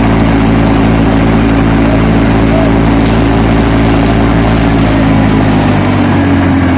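Combine harvester's engine running steadily with the noise of its machinery; near the end the engine note drops a little.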